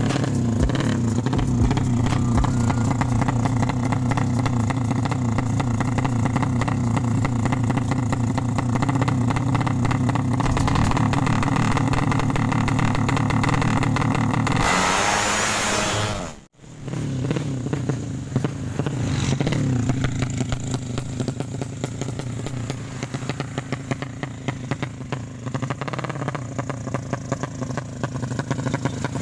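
Modified sleep-engine drag motorcycle engine running steadily. About fifteen seconds in, a short rushing noise comes before a sudden cut, and the engine then runs on a little quieter with small changes in revs.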